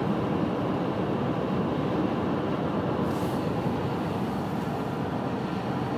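Steady road and tyre noise of a car at highway speed, heard from inside the cabin, its tyres running on a wet, slushy road. A brief faint hiss comes about halfway through.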